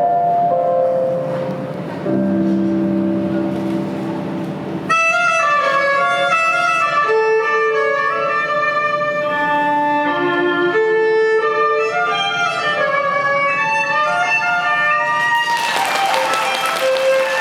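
Instrumental program music led by violin, starting with a quieter passage of held low notes and turning suddenly fuller and brighter about five seconds in. A short rush of noise rises over the music near the end.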